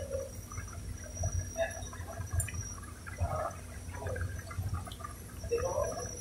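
Large pot of water with macaroni boiling hard: an uneven bubbling and gurgling over a low rumble.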